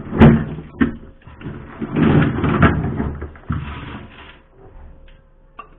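Hammer knocking built-up ice loose inside a freezer during defrosting: a sharp knock, another just under a second later, then a louder stretch of knocking and ice scraping about two seconds in, fading to a few small clicks near the end.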